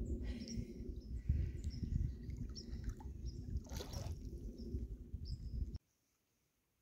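Wind rumbling on the microphone while small birds give short, high, repeated chirps, with a brief rustling noise about four seconds in. The sound cuts off suddenly near the end.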